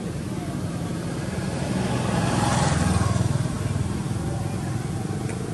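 A motor vehicle passing by: a steady engine hum that grows louder to a peak about halfway through, then fades.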